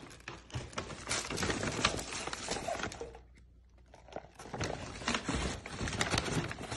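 Brown paper takeout bags rustling and crinkling as food containers are handled inside them, with a short lull about halfway through.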